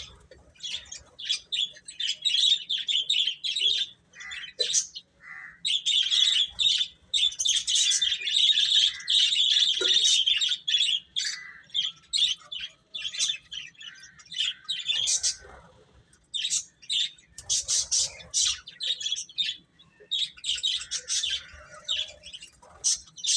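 Baby chicks peeping: many short, high-pitched cheeps overlapping, almost continuous in places and coming in bursts with short pauses in between.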